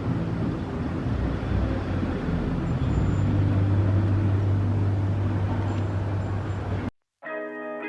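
Steady low rumble of a motor vehicle with road noise, a low hum holding steady through the second half. It cuts off suddenly near the end, and guitar music starts.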